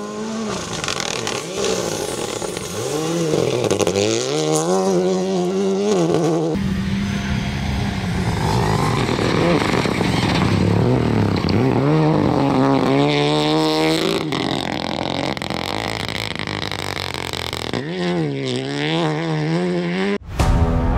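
Renault Clio Rally3 Evo rally car driven flat out on gravel: its engine climbs in pitch and drops back again and again through the gear changes. The sound jumps abruptly several times as one pass gives way to the next.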